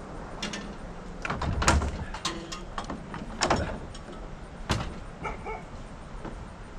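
Dismantled riding lawn mower parts knocking and banging as they are handled in a pickup truck bed: a string of sharp knocks, the loudest a heavy thud about a second and a half in and another bang about three and a half seconds in.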